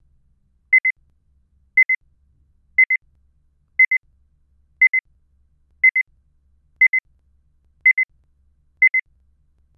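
Electronic timer beeping, a quick high-pitched double beep repeating about once a second at an even pace.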